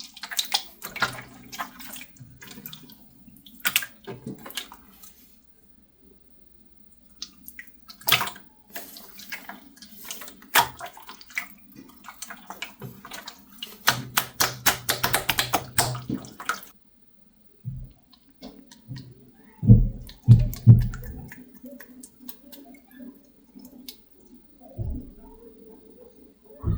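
Hands playing with slime: wet squishing with runs of small clicks and crackles, densest about halfway through, then a few heavier squelching thuds.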